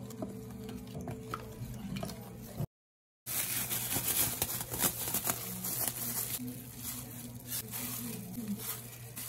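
Wooden spoon stirring a thick soy-based marinade in a plastic tub, with wet sloshing and light taps on the tub. After a short break, crinkling from a disposable plastic glove, then the soft wet squish of raw chicken pieces being laid into the marinade. A steady low hum runs underneath.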